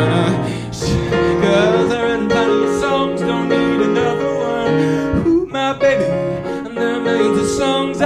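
A man singing a song with piano accompaniment, his voice sliding between held notes.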